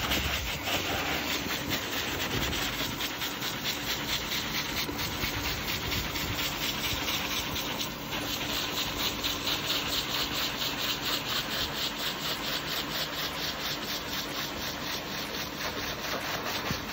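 Dog-grooming machine running steadily through a corrugated hose, with a steady hum, as its nozzle is worked through an Alaskan malamute's thick coat with a rubbing sound.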